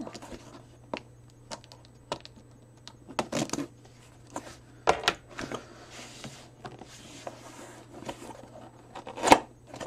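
Cardboard shipping box being opened by hand: scattered taps, scrapes and rustles as hands and a small tool work at its taped flaps, with a louder knock near the end.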